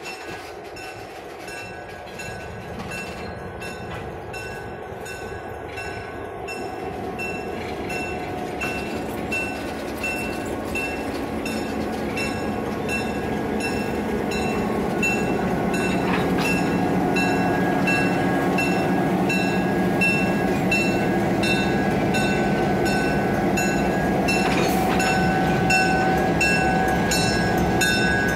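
A slow-moving passenger train's railroad cars rolling past, steel wheels clicking on the rails over a steady high whine. The sound grows steadily as the diesel locomotives draw near and pass at the end.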